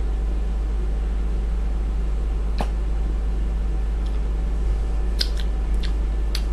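Steady low hum in a small room, with one faint click about two and a half seconds in and a few small sharp clicks near the end.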